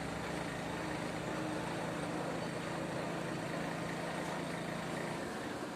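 An engine running steadily with a low hum over a noisy rush; the hum drops away about five seconds in.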